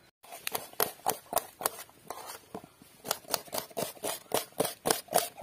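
Knife chopping shallots on a steel plate: a run of sharp taps, about three or four a second, starting just after a brief silence.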